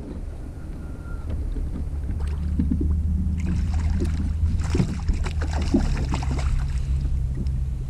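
Bass boat's outboard motor running underway, its steady drone growing louder over the first few seconds, with water rushing and splashing against the hull.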